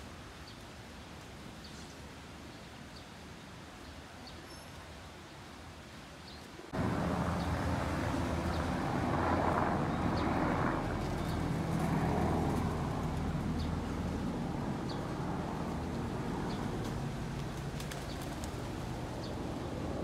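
Outdoor background with a small bird chirping briefly about once a second. About seven seconds in, the sound jumps suddenly to a louder, steady low rumble that runs on.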